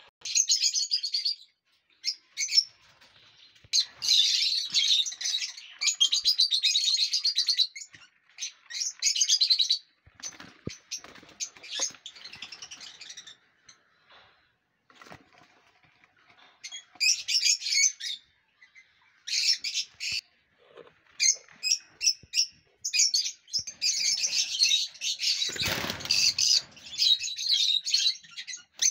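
Lovebirds chattering: bursts of rapid, high chirps that stop and start again. About three-quarters of the way through there is a brief deeper rustle or bump.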